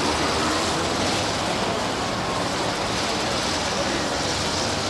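Steady, even street noise with a low rumble, with no single event standing out.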